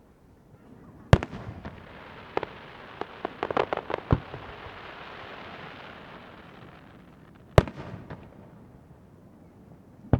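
Aerial firework shells bursting: a loud bang about a second in, then a quick run of smaller pops over a crackling hiss, and another loud bang near the end.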